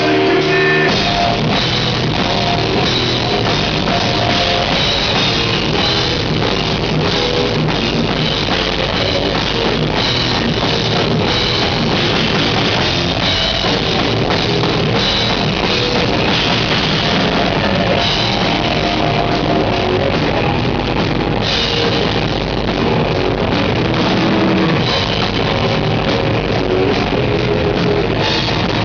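Death metal band playing live at full volume: electric guitars, bass and a drum kit with cymbals, loud and unbroken throughout.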